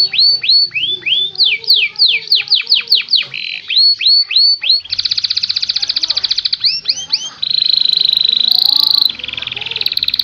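Domestic canary singing: a quick series of falling whistled notes, then from about five seconds in a fast, even trill, followed by a held high trill in the second half.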